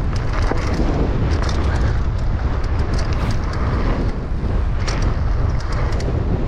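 Wind buffeting an action camera's microphone as a mountain bike rolls fast down a dirt trail, a heavy rumble with tyre noise on the dirt and scattered clicks and rattles from the bike.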